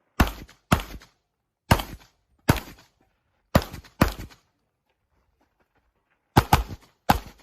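Handgun shots fired on a practical-shooting stage: about eight sharp reports, some single and some in quick pairs, with a pause of about two seconds in the middle before a final string of shots.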